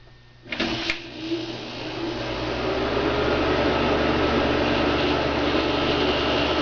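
GE Carry Cool window air conditioner switched on about half a second in, with a click. Its fan then spins up over a couple of seconds to a steady rushing run with a low hum underneath.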